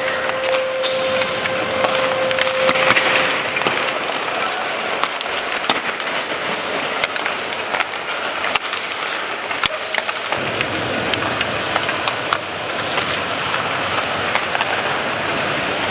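Ice hockey warm-up: frequent sharp clacks of pucks striking sticks, boards and goalposts over a steady rink and arena hubbub. A steady tone sounds through the first few seconds.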